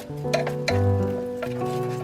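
Background music: held instrumental notes over a bass line, with light percussive hits about every half second.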